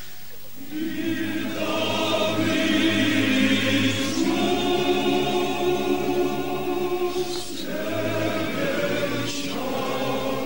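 A choir singing slow, long-held notes, with brief pauses between phrases.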